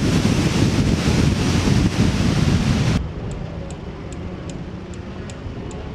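Loud wind buffeting on a car-mounted action camera's microphone. It cuts off suddenly about halfway through to a much quieter background with faint, evenly spaced high ticks, two or three a second.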